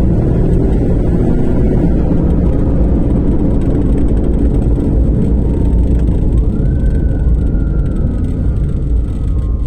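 Loud, steady low rumble of a fire engine's engine and road noise on an emergency run. Over it, the wailing fire engine siren is fainter: it slowly falls in pitch early on, then winds up about six and a half seconds in and slowly falls again.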